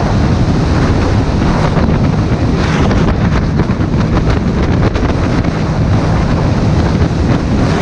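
Wind buffeting the microphone on a moving motorcycle, loud and steady, over the low drone of the engine and road noise.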